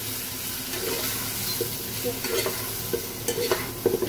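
Cubed mushrooms sautéing in hot oil in a frying pan with a steady sizzle, while a spatula stirs them. Several scrapes and knocks of the spatula against the pan come in the second half.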